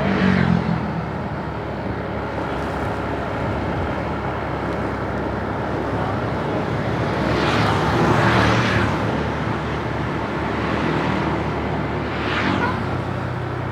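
Roadside traffic: a steady hum of engines and tyre noise, with vehicles passing by, the loudest about eight seconds in.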